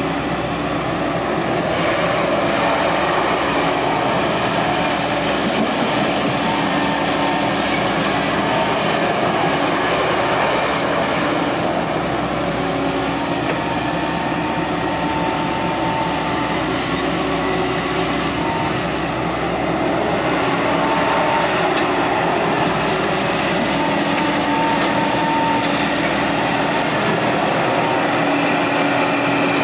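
Hydraulic excavator working: a steady engine drone with whining tones that come and go as the hydraulics are worked.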